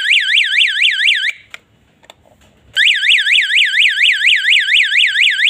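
Electronic siren of a wireless panic alarm sounding a fast, loud warble of about four rising-and-falling sweeps a second. It stops about a second in, and after a short gap sounds again until near the end, as the alarm is set off and switched off during a test.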